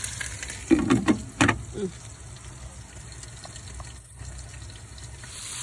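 Glass pot lid set down on a pot of frying pork and beef, clanking a few times about a second in, then the meat sizzling quietly under the lid; the sizzle grows louder near the end.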